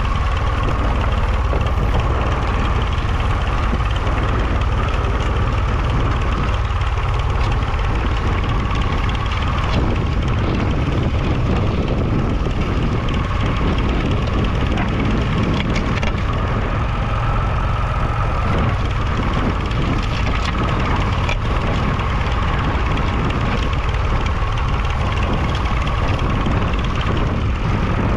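Massey Ferguson 20 Industrial tractor's 2.5-litre three-cylinder diesel engine running steadily.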